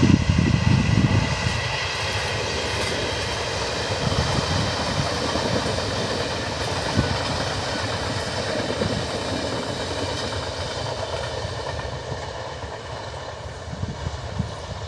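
A locomotive-hauled Chu-Kuang express train rolling past on the track: a low rumble in the first second or two, then the steady clatter of coach wheels on the rails, slowly fading as the train moves away.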